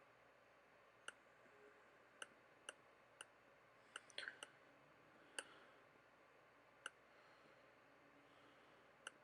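Plastic Lego pieces clicking and snapping as a brick-built figure is handled and repositioned: about ten sharp, short clicks at irregular intervals, with a quick cluster of them about four seconds in, over near-silent room tone.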